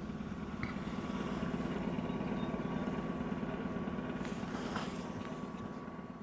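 ED2T electric multiple unit running, heard from inside the carriage: a steady low hum from the motors and running gear over a haze of wheel and rail noise. It fades out near the end.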